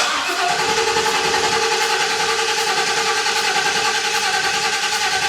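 Ford 6.2-litre gasoline V8 being cranked over by the starter with the accelerator held to the floor, so it turns without starting, for a relative compression test. The starter whines steadily under an even, rapid pulsing as each cylinder comes up on compression.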